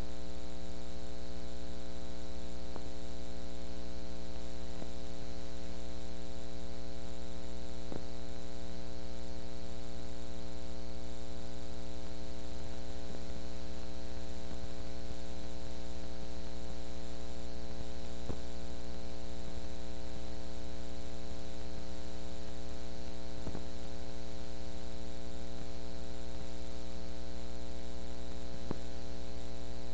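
Steady electrical mains hum with a stack of buzzing overtones and a layer of hiss, with a few faint ticks. This is the sound of a blank, unrecorded stretch of analog videotape playing back through the transfer equipment.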